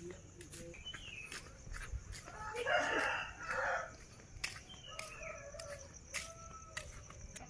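A rooster crowing once, a call of about a second and a half near the middle, with faint short chirps and scattered clicks around it.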